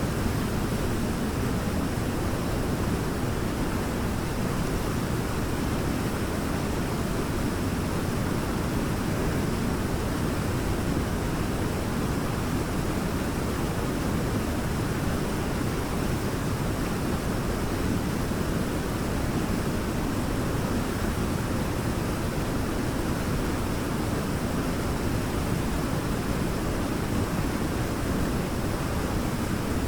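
Waterfall: water falling and rushing in a steady, unbroken noise, deep and full in pitch.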